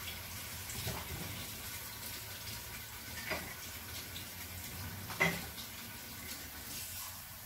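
Crockery being handled: a few light knocks and clinks as a mug is taken from the dish rack and set down, the loudest about five seconds in, over a steady faint hiss.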